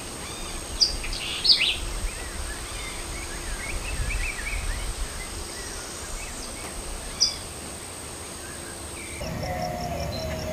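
Outdoor nature ambience: small birds chirping in short, quick calls, the sharpest about a second in, again half a second later and near seven seconds, over a faint high steady whine. About nine seconds in the background changes to a low hum with a fast, even insect trill like a cricket.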